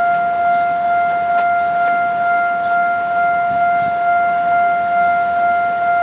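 Railway level-crossing warning alarm sounding one steady electronic tone.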